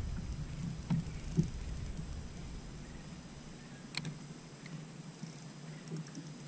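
Bass boat's trolling motor humming, then shut off about halfway through. Soft thumps on the deck come around the first second and a half, and one sharp click about four seconds in.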